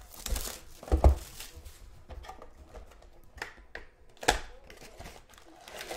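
Hands handling and opening a plastic-wrapped Panini Spectra card box: a brief rustle of wrap near the start, a couple of thumps about a second in, then scattered clicks and knocks of cardboard.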